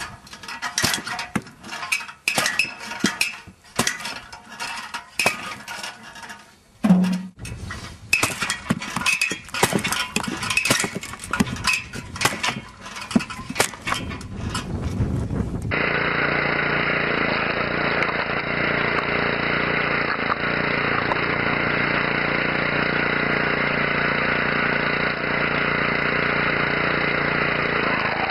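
A homemade spring-loaded lever splitter chopping kindling: a quick, irregular series of sharp knocks and cracks as the blade strikes and splits the wood. About halfway through this cuts abruptly to a steady machine drone, a motor-driven screw-cone log splitter running.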